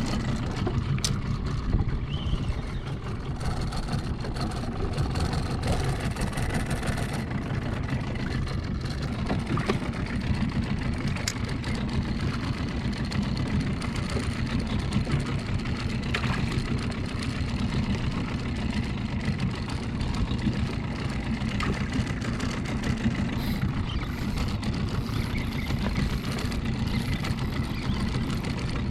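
Small boat outboard motor running steadily at low speed.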